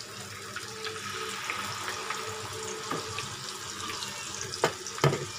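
Rice-flour and chana dal batter fritters frying in hot oil in a pan: a steady sizzle with small crackles throughout. Two sharp clicks come near the end.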